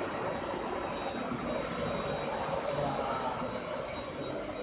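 Cold spark fireworks machine jetting titanium powder: a steady rushing hiss, with a faint high whine running through it.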